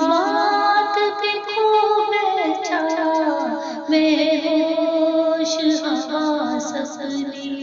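A woman singing an Urdu naat, drawing out long notes that slide up and down without a break.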